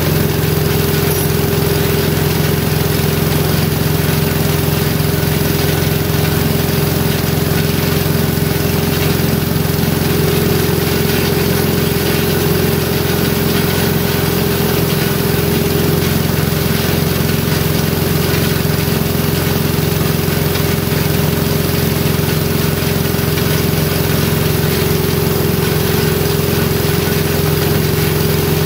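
Gas-engine-driven Rol-Air wheelbarrow air compressor running steadily at an even speed, its small engine turning the pump through a freshly tightened V-belt.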